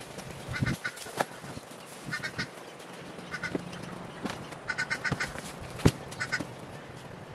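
Bird calls, short honks in quick bursts of two to four, repeating every second or so, with a few sharp knocks; the loudest knock comes about six seconds in.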